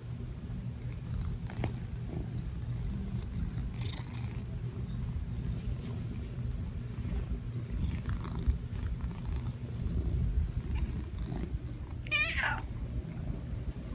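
Domestic cat purring steadily while being petted, with one short wavering call near the end.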